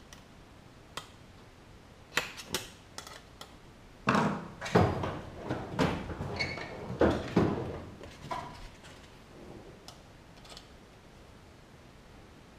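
Scattered clicks, then a few seconds of metallic clatter and knocks from a steel tool-chest drawer and hand tools being handled, alongside a metal car-radio mounting cage.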